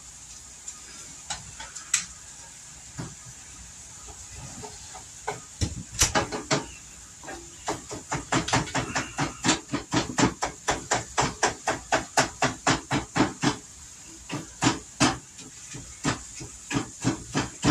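Metal spatula repeatedly striking and scraping a frying pan on the stove, a few scattered knocks at first, then a steady run of about three strokes a second, over a continuous hiss.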